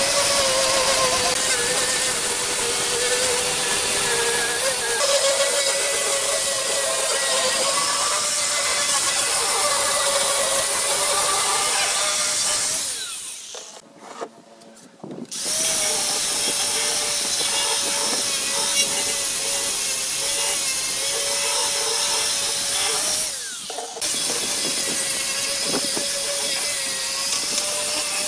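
Angle grinder fitted with a sanding disc, running and sanding end-grain softwood blocks with a steady whine and a hiss from the disc on the wood. The sound stops for about two seconds around halfway and dips briefly about two-thirds of the way in.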